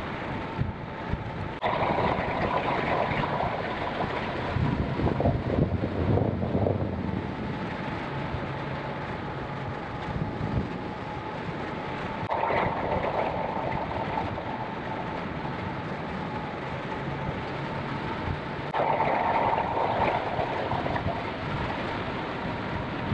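Air rushing over the microphone of a hang glider in flight: a steady windy rush with a faint steady whistle through it, swelling louder in gusts a few times.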